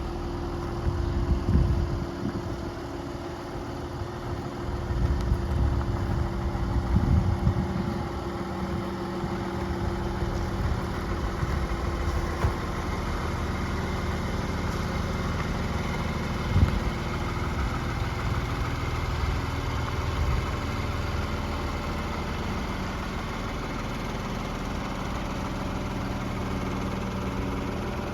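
Diesel engine of a Volvo EW160C wheeled excavator idling steadily. A few heavier low swells come in the first several seconds, and there is a single sharp knock about halfway through.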